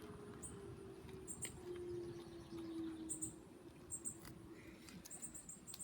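Outdoor tornado warning siren winding down: its low tone sinks slowly in pitch, swelling and fading as it goes, and dies away about three seconds in. Small clusters of high chirps recur throughout.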